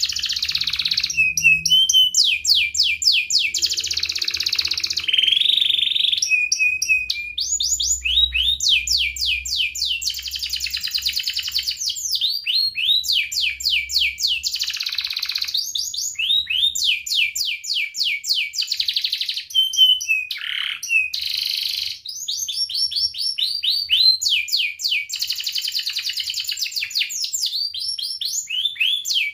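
Domestic canary singing a long, near-continuous song made of fast runs of repeated high gliding notes and rolling trills, with brief pauses between phrases.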